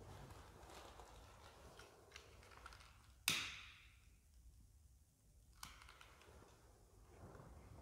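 A single sharp click with a short ringing tail about three seconds in, and a fainter click a couple of seconds later, over faint rustling room tone in a quiet church.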